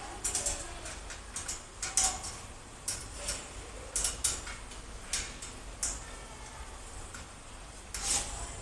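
Irregular small metallic clicks and taps as bolt hardware knocks against a metal bed-frame tube while a bolt and nut are fitted by hand at a joint of a bunk-bed frame.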